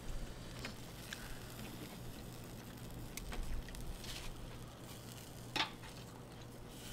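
Pork sizzling faintly on a tabletop grill pan, with a few light clicks of tongs and chopsticks, the sharpest near the end.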